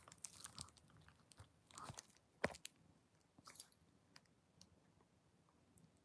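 Near silence with a few faint, scattered clicks and small crackles that die away after about four seconds.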